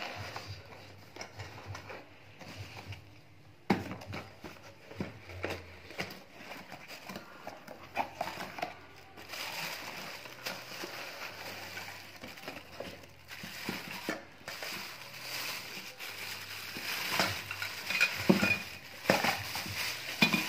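Cardboard box and plastic wrapping crinkling and rustling as a vegetable chopper is unpacked by hand. There is a sharp knock about four seconds in, and the crinkling grows denser and louder from about nine seconds on.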